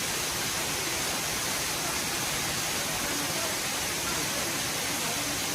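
Waterfall: falling water rushing steadily, an even hiss with no breaks.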